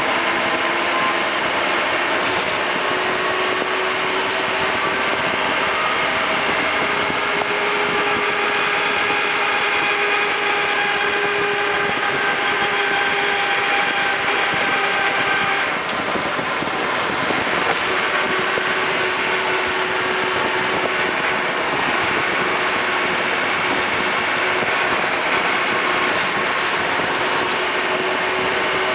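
Land Rover Defender 110 running on the move: steady vehicle noise with several whining tones that drift slowly in pitch, dipping briefly about halfway through.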